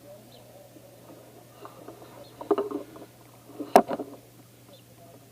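Scattered rustles and knocks, with a single sharp click nearly four seconds in, over a steady low hum.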